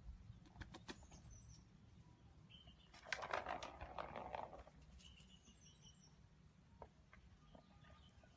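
Mostly near silence. About three seconds in comes a rattle and crunch lasting about a second and a half: cats rummaging through dry kibble in a plastic food bowl. A few faint, short high chirps sound in the background.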